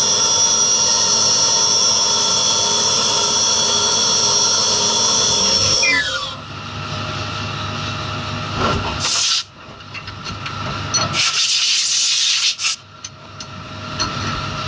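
Mini CNC vertical mill cutting 6061 aluminium: a steady high whine with hiss from the spindle and cutter. About six seconds in the cut ends and the spindle spins down with a quick falling pitch, followed by a few loud bursts of hissing noise.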